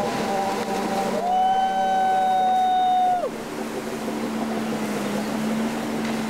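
Hydrodyne ski boat engine running at speed across open water. Its pitch rises about a second in, holds, then drops off sharply a little after three seconds as the throttle comes back, leaving a lower steady engine hum with water and wind noise.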